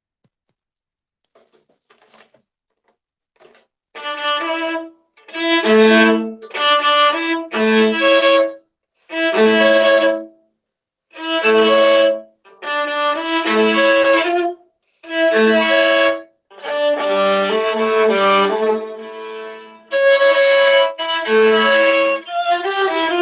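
Solo viola being bowed: after a few nearly silent seconds, it plays a string of short phrases, each a second or two long and separated by brief pauses, picked up by a crunchy-sounding microphone.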